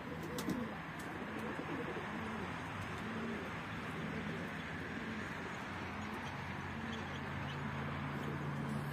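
Domestic pigeons cooing over and over. Near the end a steady low hum comes in underneath.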